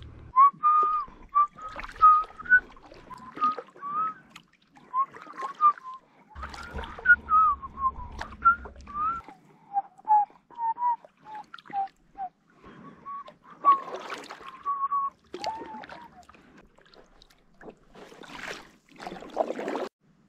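A person whistling a meandering tune, one clear note at a time with small slides between notes, most of it a little above 1 kHz and a lower run of short notes partway through. Occasional short knocks and bursts of hiss break in, the largest near the end.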